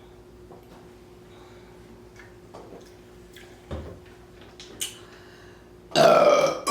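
Quiet with a few faint clicks and a dull knock, then about six seconds in a sudden loud burp brought up by drinking carbonated soda.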